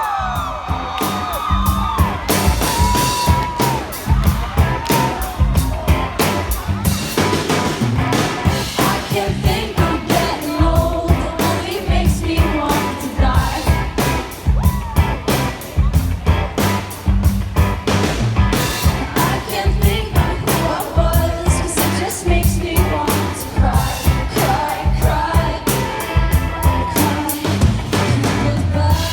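Live pop-rock band playing through a PA at a sound check: a steady drum kit beat with a sung lead vocal line over guitars.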